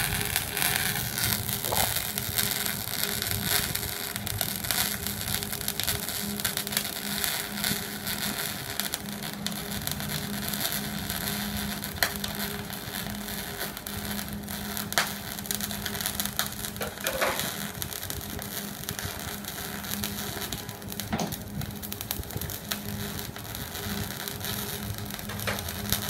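MIG welding arc on a mechanical step-adjust (tap-switch) MIG welder, crackling and sizzling steadily as a bead is laid, with a few sharper pops. A steady low hum runs under it.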